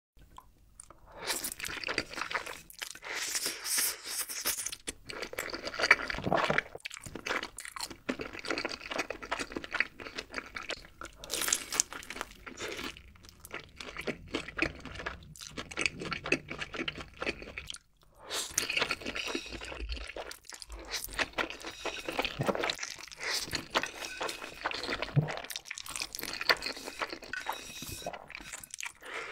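Eating sounds: crunching and chewing of sauce-glazed chicken and slurping of black bean sauce noodles, coming in clusters with short pauses.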